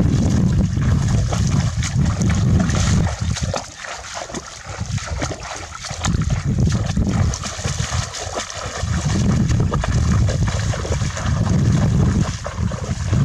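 Water splashing and sloshing, with scattered small splashes over a strong low rumble that eases off twice.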